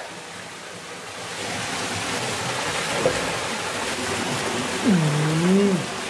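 Waterfall pouring into a rock pool, with water splashing around a person standing in it: a steady rushing. About five seconds in, a man's voice gives one short, drawn-out call.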